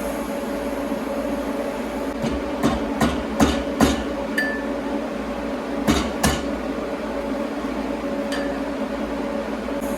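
A run of sharp metal taps, five in quick succession about two seconds in and two more around six seconds, some leaving a short ring, typical of a hammer striking steel workpieces. Under them runs a steady machine hum.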